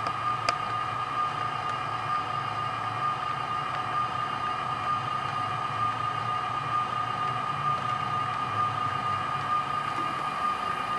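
HO scale model freight train running past on its track: a steady whine and low rumble from the locomotive motors and the wheels on the rails, with a faint click about half a second in.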